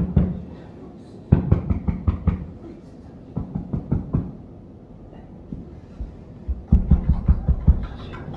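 Buddhist sutra chanting by a priest in short bursts, with fast, evenly struck knocking drum beats under the voice; there is a lull about halfway before the chant and beats pick up again.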